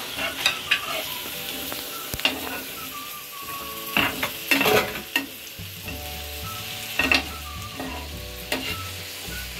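Onions, garlic, tomatoes and ginger paste sizzling in hot oil in a pan, with a steady hiss, while a spoon stirs and scrapes the pan in sharp strokes every second or two.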